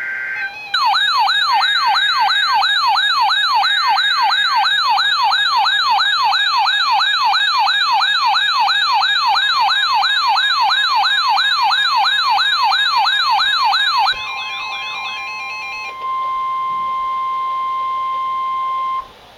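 Electronic alert siren warbling rapidly up and down, about two and a half sweeps a second, for some thirteen seconds after a brief data-tone burst, then fading out. Near the end comes a steady single-pitch alert tone of about 1 kHz, the weather-radio 1050 Hz warning tone, held for about three seconds.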